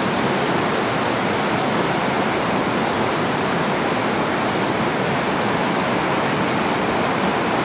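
Steady rush of water pouring through a dam spillway, an even wash of noise with no breaks.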